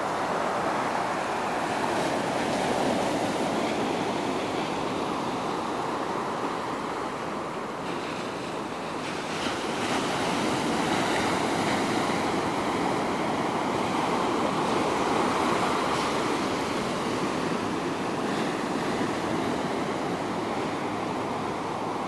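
Ocean surf breaking and washing up a sandy beach: a steady rushing wash that swells and eases as the waves come in, dipping about a third of the way through and building up again past the middle.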